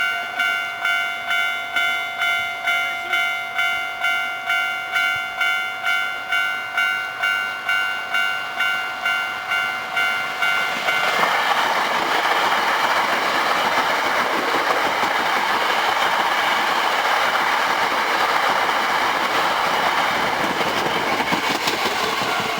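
Japanese level-crossing warning bell ringing about twice a second. About eleven seconds in, an eight-car Hankyu 1300 series electric train runs past through the crossing, its loud wheel and running noise drowning the bell until near the end.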